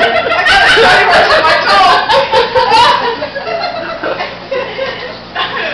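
Several women laughing hard, with a few words mixed in. The laughter is loudest in the first three seconds, then dies down.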